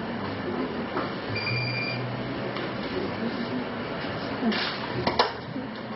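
Steady background noise with a short, high electronic beep about a second and a half in and a few sharp clicks near the end.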